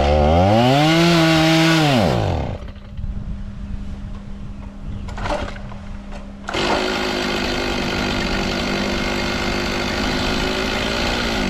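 Holzfforma G660 two-stroke chainsaw being restarted: it fires and revs, then winds down and stalls about two seconds in. After a couple of short clicks it catches again about six and a half seconds in and runs steadily.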